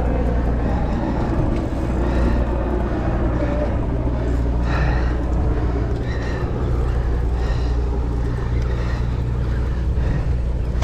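Sportfishing boat's engine running with a steady low drone.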